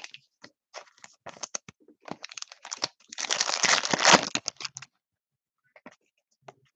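Foil trading-card pack being torn open and crinkled by hand: a dense burst of tearing and crinkling about three seconds in that lasts under two seconds, after a run of light clicks and taps of cards being handled.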